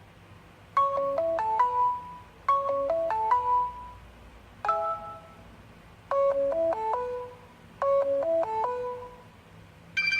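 HTC Desire 601 ringtones played through the phone's speaker: a short chime melody of a few quick, clear notes repeats about every one and a half seconds, with one different, shorter phrase in the middle. A new, fuller tone starts at the very end.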